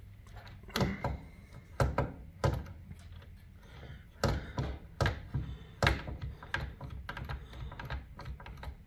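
Irregular clicks and knocks of plastic and metal parts being handled on a dismantled Stanley garage door opener, as its control board is worked loose, with a run of small quick ticks near the end.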